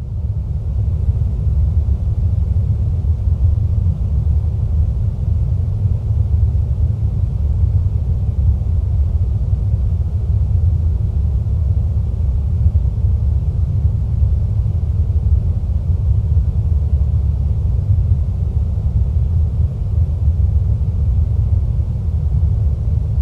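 Steady, deep ambient rumble with no distinct events, its loudness settling in the first second.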